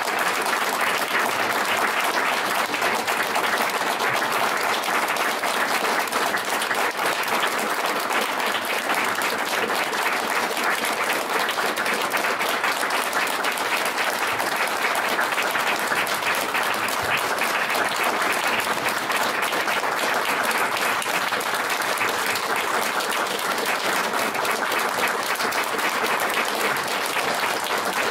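Audience applauding: sustained, even clapping from a roomful of seated listeners.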